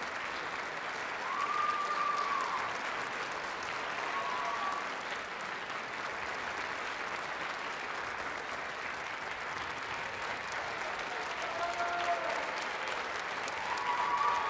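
Concert-hall audience applauding steadily after a performance, with a few short cheers rising over the clapping about two seconds in, around four seconds, and again near the end.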